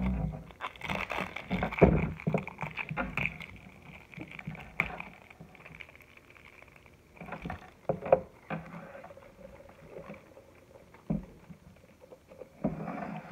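Crinkly plastic wrapping rustling and tearing as it is peeled off a plastic slime tub, busiest in the first few seconds, followed by quieter scattered taps and rustles of the tub being handled.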